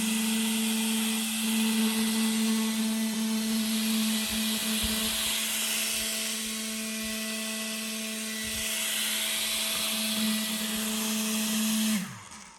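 Small electric motor running at a steady pitch with a strong hiss, then switched off near the end and winding down in pitch.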